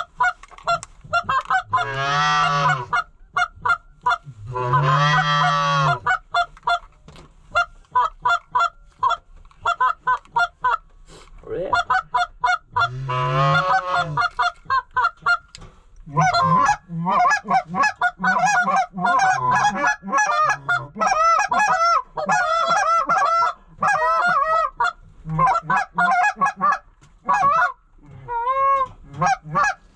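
Goose calls blown by hunters to work incoming lesser Canada and cackling geese: a string of short, quick clucks and honks, with three long drawn-out notes in the first half and a dense, fast run of clucks through the second half.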